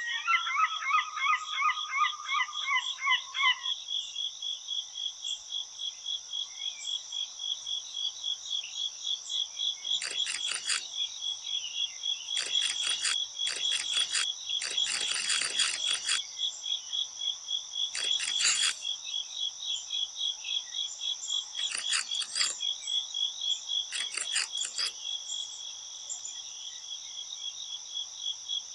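Crickets chirping in a steady pulsing rhythm. Another rapid chirping call joins for the first few seconds, and several short bursts of rustling noise come in the middle.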